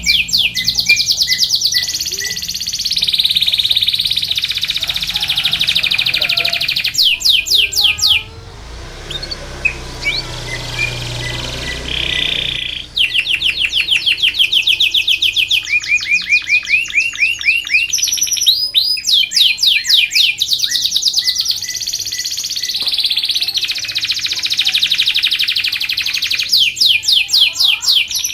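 Domestic canary singing a long song of fast trills and rapid runs of high repeated notes, with a pause of a few seconds near the middle before the song starts again.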